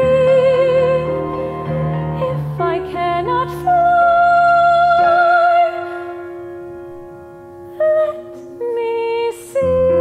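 A female classical soprano singing long held notes with vibrato, accompanied by a grand piano. About seven seconds in, the voice drops out and the music goes quiet on a sustained piano chord, then the voice comes back on short notes and a long held note near the end.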